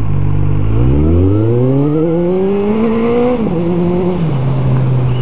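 Motorcycle engine accelerating as the rider opens the throttle, its note climbing for about two and a half seconds. The pitch drops sharply at an upshift about three and a half seconds in, then settles to a lower steady note, with wind noise throughout.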